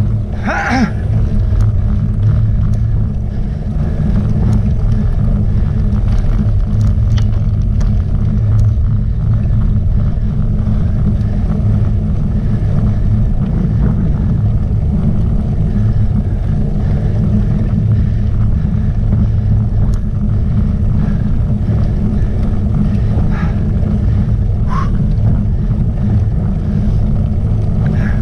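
Wind buffeting the microphone of a camera riding on a road bike: a loud, steady low rumble. Two brief higher-pitched sounds cut through it, one just after the start and one near the end.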